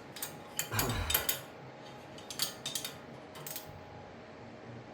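Irregular metallic clinks and clicks of a wrench and socket on steel hub mounting bolts as they are tightened in a diagonal pattern, with a short cluster of clatter about a second in.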